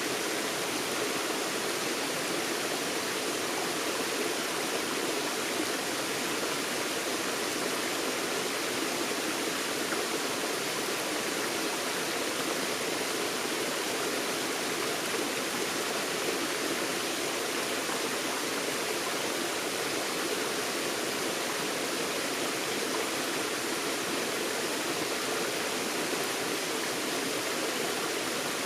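Forest stream running over rocks, a steady rushing of water with no change in level.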